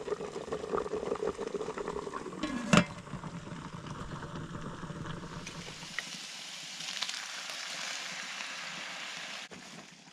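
Food sizzling and frying in a hot pan on the stove, with stirring and a loud metallic clank about three seconds in. The sizzle cuts off sharply near the end.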